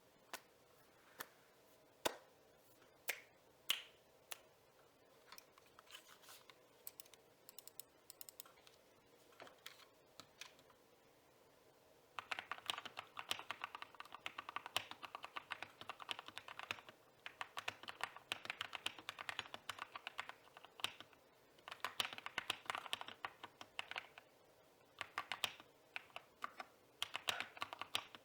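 Mechanical keyboard with a deep typing sound: single keystrokes pressed one at a time at first, then fast continuous typing in long runs from about twelve seconds in.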